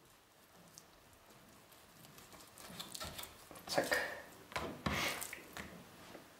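Kitchen knife slicing a raw chicken breast lengthwise on a wooden cutting board. It is faint at first, then a run of rubbing, scraping strokes comes about halfway through as the blade and the meat halves move over the board.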